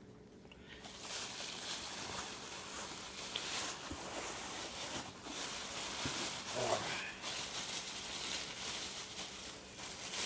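Packing material in a cardboard shipping box rustling and crinkling as hands rummage through it.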